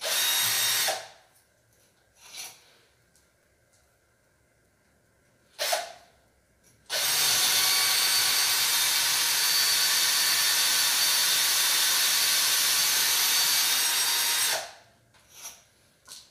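Cordless power drill boring into a wall: a short burst at the start, two brief blips, then one long steady run of about seven and a half seconds that cuts off near the end.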